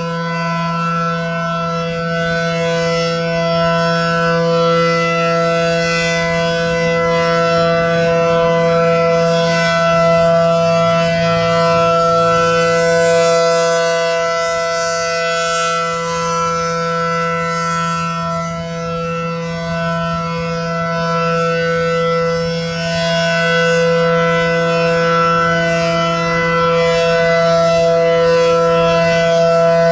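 ACA Allertor 125 outdoor warning siren sounding a steady, unwavering tone for a siren test. Its loudness swells and fades slowly as the rotating horn sweeps past, dipping around the middle.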